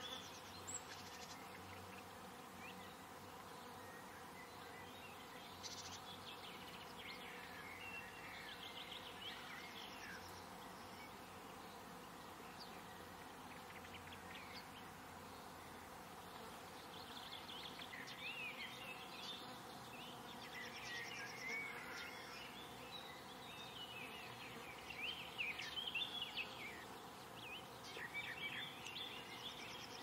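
Outdoor garden ambience: faint birdsong, short quick chirps on and off, busier in the second half, over a steady faint buzz.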